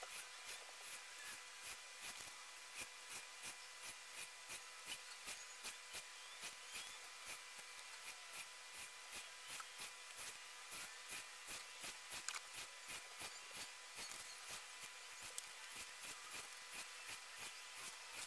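Pen-style craft knife drawn along a ruler through two sheets of cardstock, making a faint, quick run of short scratching strokes, about three to four a second, pressed hard enough to cut through the lower sheet too.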